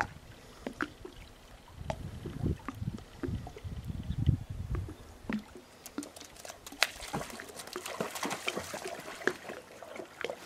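Water splashing and trickling as two dogs wade into shallow water and nose around in it, the splashes starting about halfway through. Low rumbling in the first half.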